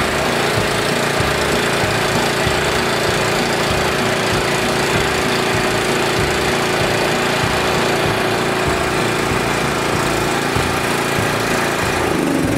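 Honda GX340 single-cylinder generator engine running steadily at a constant speed, now fitted with the correct OEM Honda carburetor gaskets; the wrong aftermarket gaskets were what had kept it from running right. Its note sags a little near the end.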